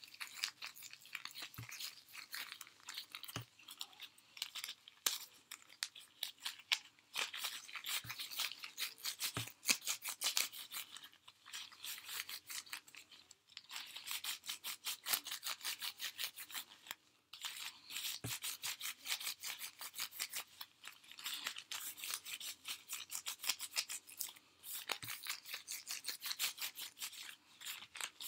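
Gloved hands kneading dental impression putty: a fast, continuous rubbing and squishing as the gray and purple putties are worked into one colour, with a few brief pauses and occasional soft knocks.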